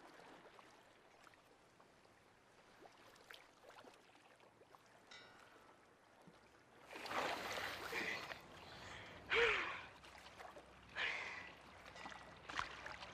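Faint surf, then several splashes as a woman wades and swims into the sea, with short breathy gasps in between.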